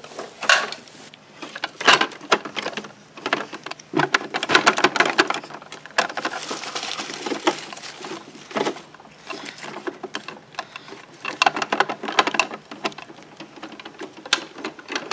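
Hard plastic clicking and knocking from a Bruder toy garbage truck's rear loader and its toy bin being worked by hand, with shredded paper rustling as it is stuffed into the truck's hopper. The clicks come irregularly, and the rustling is thickest in the middle.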